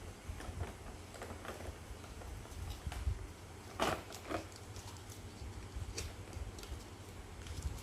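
Handling noise from a Nerf toy blaster: scattered light clicks and knocks, with one louder click about four seconds in.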